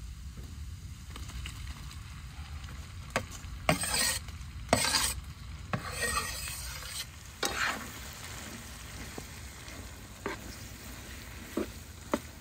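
Chopped beef brain scraped off a wooden board into a hot, steaming wok, with sharp scraping knocks and bursts of sizzling about three to eight seconds in. After that a utensil clicks against the pan a few times as the food is stirred.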